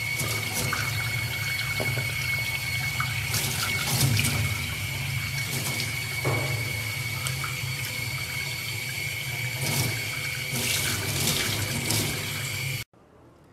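Tap water running into a stainless-steel sink and splashing over a baby chimpanzee being bathed, with a steady high whine through the rush of water. The sound stops abruptly near the end.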